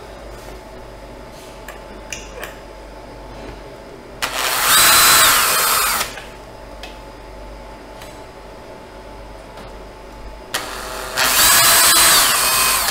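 Cordless drill with a 2 mm bit spotting pilot holes into an aluminium plate through plastic bearing mounts, running in two bursts of about two seconds each, about four seconds in and near the end. Its motor whine drops in pitch as each burst ends, with small clicks of handling between.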